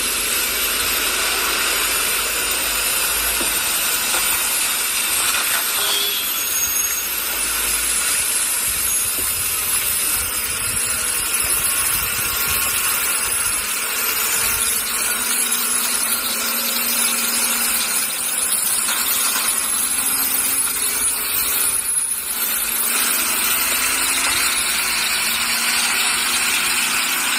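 Fully loaded lorry's diesel engine labouring up a steep hairpin bend under heavy load, passing close by, with a steady hiss over it.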